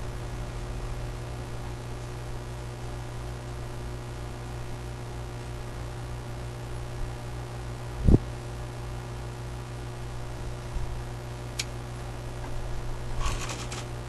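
Steady low engine drone and road noise inside a semi-truck's cab while driving. A single thump, the loudest sound, comes about eight seconds in, followed by a sharp click and a short run of rattling clicks near the end.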